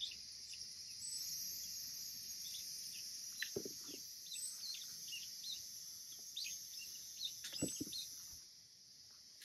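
Steady high insect drone with scattered short bird chirps over it, and a couple of soft knocks from handling the fruit and branches, one about a third of the way in and another later on.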